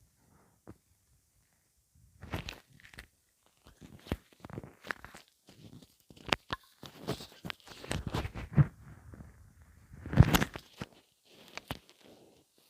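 A person's stomach rumbling and gurgling in irregular squelches, pops and clicks that start about two seconds in, with the loudest gurgle about ten seconds in.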